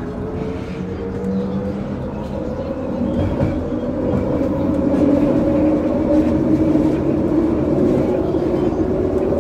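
Linear-induction-motor light-metro train on the move: a motor whine made of two tones slowly rising in pitch as it speeds up, over steady wheel-and-rail rumble, growing louder about three seconds in.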